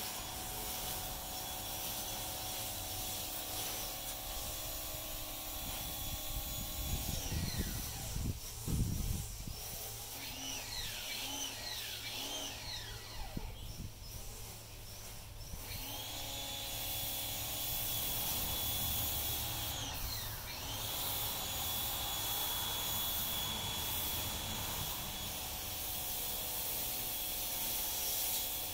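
A machine's motor running with a steady high whine that winds down about seven seconds in and spins back up around sixteen seconds in, with a few rising and falling whines in between. Low thumps come around eight to nine seconds in.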